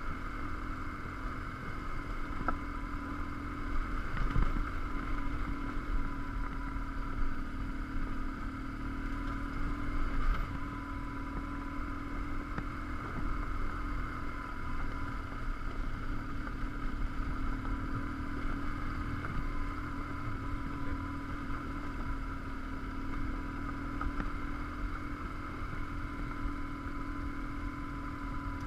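BMW R1150GS Adventure's boxer twin engine running steadily at a constant pace on a loose gravel track, under low rumble and wind noise, with a few louder knocks about 4 and 10 seconds in.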